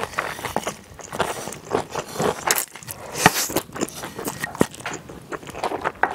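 Close-miked eating of jjolmyeon, chewy Korean noodles mixed with raw vegetables: wet mouth clicks, slurping and crunching chews, with a longer, noisier slurp about three seconds in.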